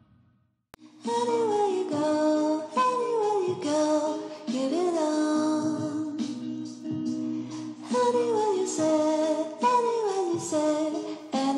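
Background music, coming in about a second in after a moment of silence, with a melody line that slides in pitch.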